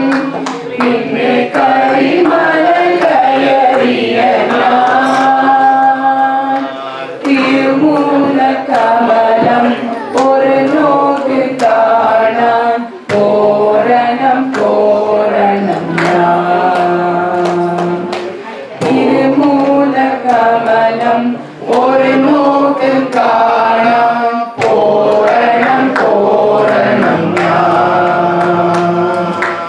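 Group of voices singing an Ayyappan devotional bhajan in sung phrases with long held notes, over a steady percussive beat.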